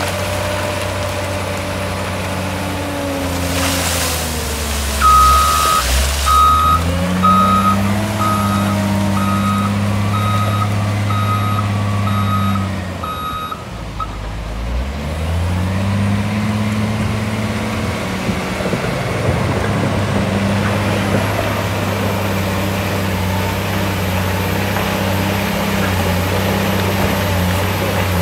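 Cat 966H wheel loader's diesel engine working under load, revving up and holding as it pushes rock. Its reversing alarm beeps about ten times, a little faster than once a second, through the first half. A brief hiss comes a few seconds in.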